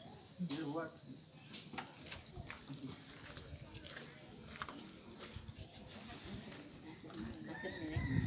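A cricket chirping steadily: an even, fast train of high-pitched pulses, about six or seven a second.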